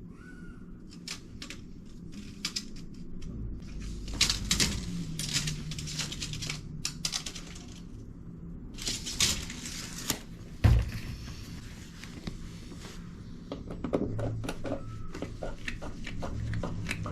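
Scattered clicks, knocks and scraping of hand tools and pipe parts being handled during drain plumbing work, with one loud knock about two-thirds of the way through.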